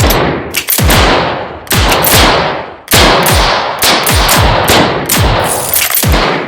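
Revolver gunshots: about ten shots fired in quick, uneven succession, each followed by a deep, echoing tail.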